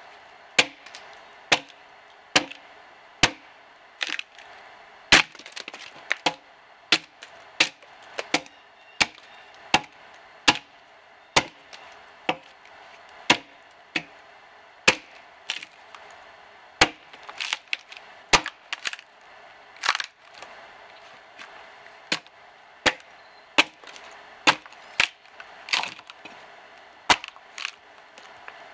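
Axe blade chopping repeatedly into the side of a dead, dry ash log, scoring a row of notches before hewing. A steady series of sharp, woody chops, a little over one a second.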